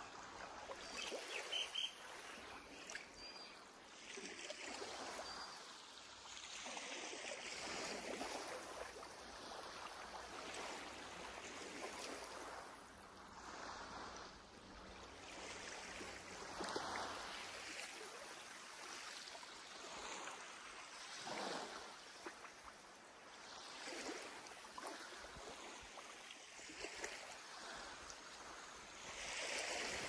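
Sea waves washing onto a beach: a steady rush of surf that swells and falls back every few seconds.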